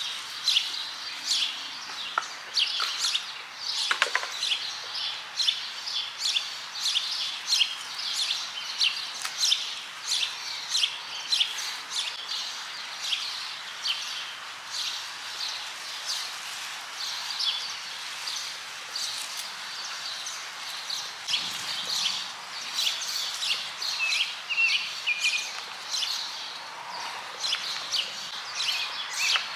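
Many birds chirping and singing together, a dense, overlapping run of short, high chirps over a faint steady background hiss.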